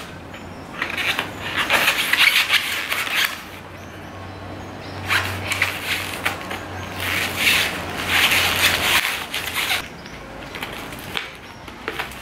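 A knife sawing through cured expanding foam and the cardboard it sits on, in three bouts of rasping strokes.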